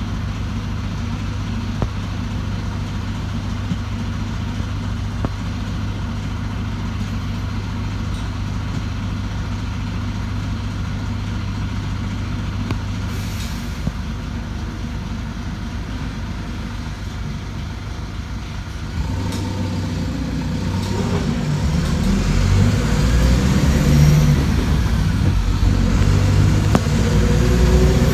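City bus engine idling steadily while the bus stands at a stop, heard from inside the cabin. About two-thirds of the way through it grows louder as the bus pulls away, with a rising whine near the end as it picks up speed.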